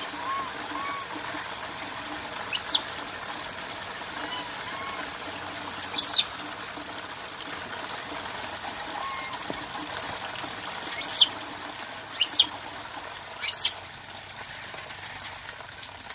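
Steady rain falling and dripping on the ground. Five short, high-pitched chirps break through it at intervals.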